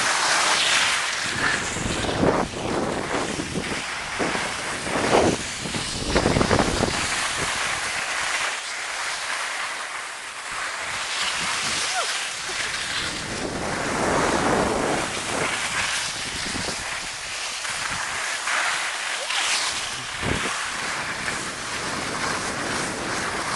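Skis hissing and scraping over packed snow in swelling waves, with wind buffeting the microphone in low gusts.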